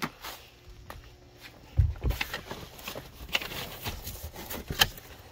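Goods being handled and moved about in a pile: a dull thud about two seconds in, then rustling and light knocks, with a sharp click near the end.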